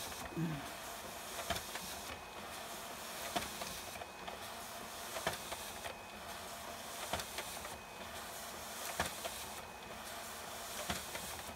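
HP ScanJet Pro 4500 fn1's automatic document feeder pulling a stack of pages through one after another. It makes a steady whir with a sharp click about every two seconds as each sheet feeds.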